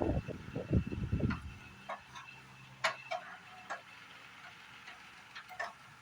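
About a second and a half of low rumbling noise that dies away, then scattered light clicks and taps at irregular intervals.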